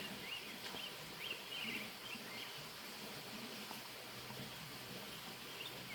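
Quiet outdoor ambience with a few faint bird chirps in the first couple of seconds, over a steady low hiss.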